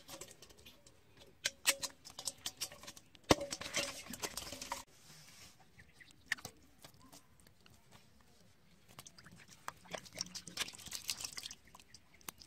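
Live fish flopping and being handled on wet grass and mud: two spells of rustling, slapping and scraping, with a sharp knock about three seconds in.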